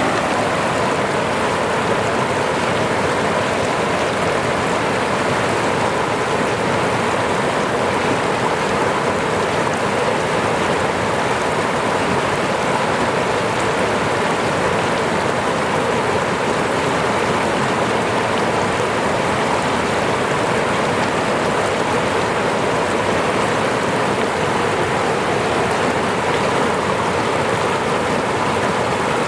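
Falling water rushing steadily, an even unbroken splash like a small waterfall or fast stream.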